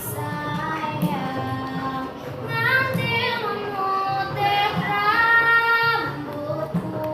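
A schoolgirl singing a slow melody in a clear, high voice, holding long notes with vibrato, over a musical accompaniment.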